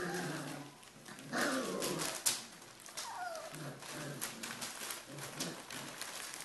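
A litter of 3.5-week-old Pyrenean Mastiff puppies playing: short yelps and growly whines, with one falling whine about three seconds in, over many small clicks and scuffles of paws on the floor.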